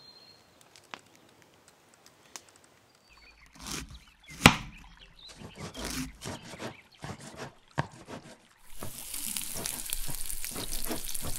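An irregular run of sharp clicks and knocks, one much louder about four and a half seconds in, followed from about nine seconds in by a steady high hiss.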